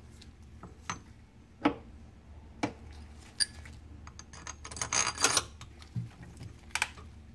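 Scattered light metal clicks and taps, with a short cluster of rattling taps about five seconds in, from a flame arrestor adapter being set on a jet ski carburetor gasket and its screws being started by hand.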